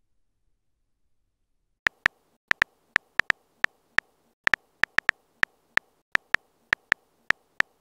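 Phone keyboard key-tap clicks of a texting app: a quick, irregular run of single taps, about three a second, starting about two seconds in as a message is typed.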